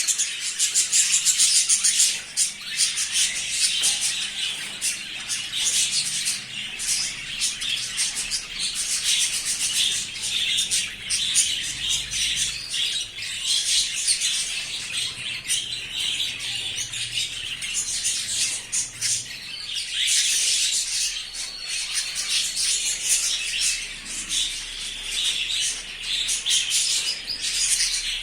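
Small birds chirping and chattering without a break, a dense stream of rapid, high calls with the odd squawk.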